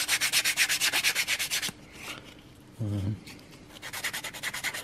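Small wooden wedges being hand-sanded with a piece of sandpaper to take the edges off: quick back-and-forth rubbing strokes that stop for about two seconds in the middle and start again near the end.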